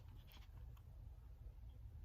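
Near silence: room tone with a steady low rumble and a couple of very faint ticks.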